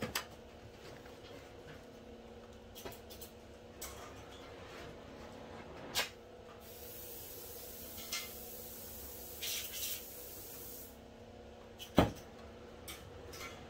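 Scattered light clicks and knocks over a faint steady hum, with a high hiss for about four seconds in the middle and one sharp knock near the end.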